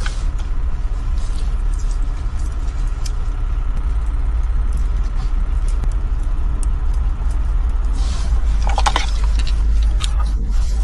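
Plastic wiring-harness connectors and cables being handled and plugged in, giving scattered small clicks and rattles, with a busier cluster about eight seconds in. Under them runs a steady low rumble.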